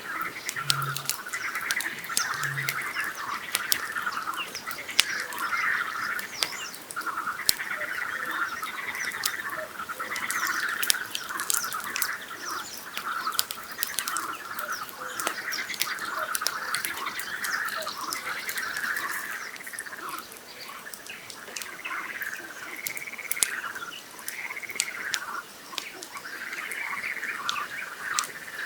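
Campfire crackling with many sharp pops over a steady chorus of frogs calling from the lake. In the first three seconds, two low booms about two seconds apart: a Eurasian bittern booming.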